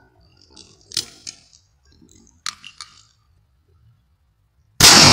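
A shotgun fires a dragon's breath incendiary shell near the end: one sudden loud blast that rings on and dies away slowly. Before it, in near quiet, a few short clicks are heard.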